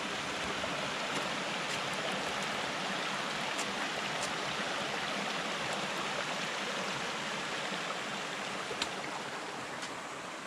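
Steady rushing of water, like a mountain stream, with a few faint ticks over it.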